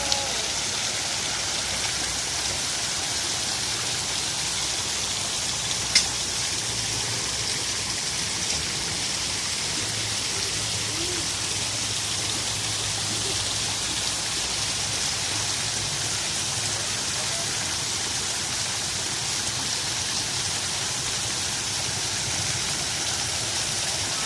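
Waterfall water rushing in a steady hiss, with one sharp click about six seconds in.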